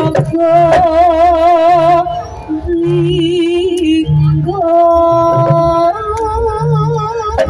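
Jaranan gamelan music: a held, wavering lead melody over a steady low drum and gong beat that repeats about once a second.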